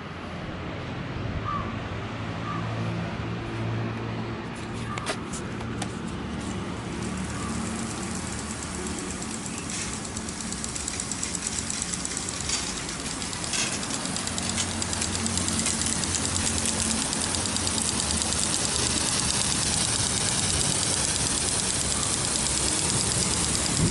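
Rotating impact sprinklers spraying water across a concrete roof: a hiss with the fast, even ticking of the sprinkler arm, growing louder in the second half as the nearest sprinkler comes close. A steady low hum runs underneath.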